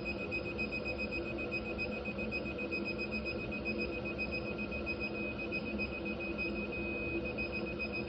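Digital torque wrench beeping, a rapid, unbroken high-pitched electronic pulsing: the signal that the set torque of 45 foot-pounds has been reached on a cylinder head bolt. A steady low hum runs underneath.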